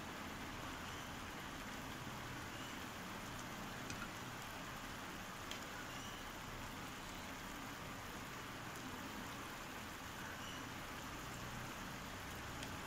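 Onions and green capsicum in a thin sauce sizzling and bubbling in a pan: a steady hiss with a few faint ticks.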